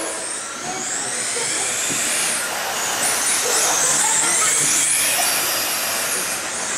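A pack of radio-controlled sprint cars racing. Their small motors give many high-pitched whines that rise and fall again and again as the cars throttle on and off around the oval, over a steady hiss.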